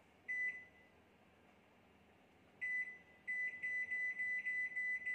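Built-in steam oven's control panel beeping as the cooking time is set: one beep, a pause, then a quick run of short high beeps, several a second, as the timer is stepped up.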